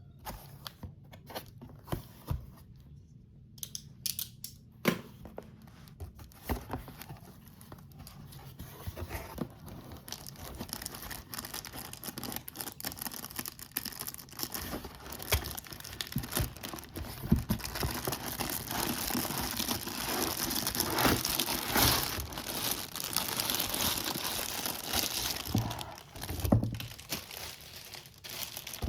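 Plastic packaging being handled and torn open: scattered clicks and rustles at first, then continuous crinkling and tearing that grows louder through the second half.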